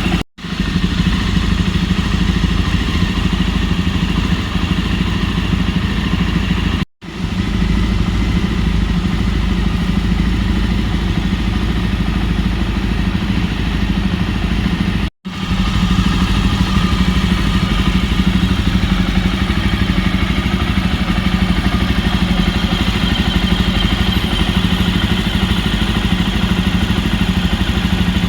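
Jawa 42 Bobber's single-cylinder engine idling steadily through its dual exhausts. The sound drops out for an instant three times.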